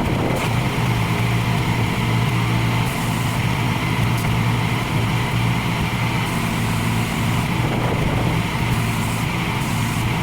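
Pressure washer running steadily: a continuous motor and pump drone with a constant hiss.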